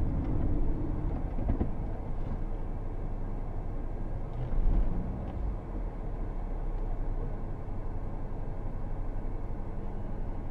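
Car engine and road rumble heard inside the cabin through a dashcam microphone, as the car slows to a stop and then idles. A brief louder swell comes about four and a half seconds in.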